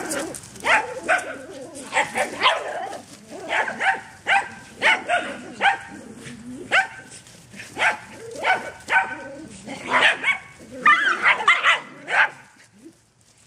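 A pack of small Chinese crested dogs barking in play: short, high-pitched yaps repeated every half second or so, several dogs overlapping in a thicker burst near the end before they fall quiet.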